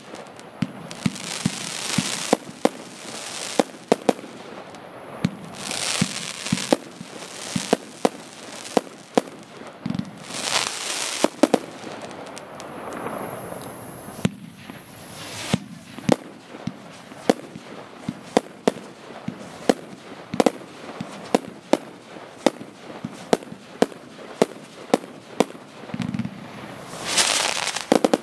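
Consumer fireworks battery (F2 cake) firing: a steady run of sharp bangs, about two a second, with bursts of hissing now and then.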